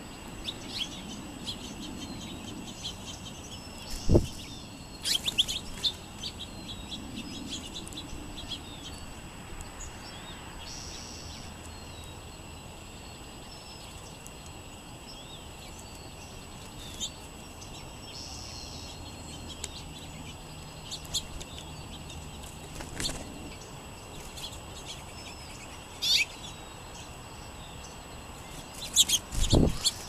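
Songbirds chirping with short, scattered calls. There is a low thump about four seconds in, and near the end a flurry as a bird flutters off close by.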